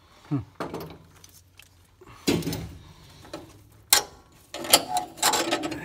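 Clicks, clanks and scrapes of a hand wrench working on a battery's cable terminals, in short uneven bursts, with a sharp click about four seconds in and a cluster of clatter near the end.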